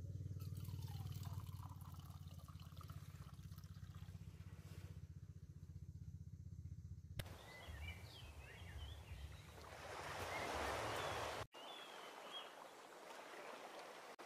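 Faint water trickling from the tap of a soft plastic jerrycan into a camping mug. After a cut, faint outdoor hiss with a few short bird chirps and a brief swell of noise.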